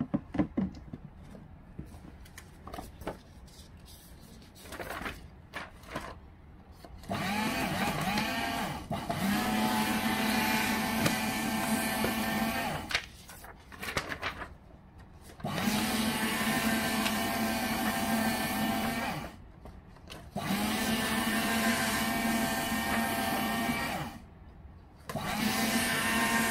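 GBC ShredMaster S206 strip-cut paper shredder running as sheets are fed through, four runs of a few seconds each that start and stop with each feed. A few clicks and knocks of handling come first.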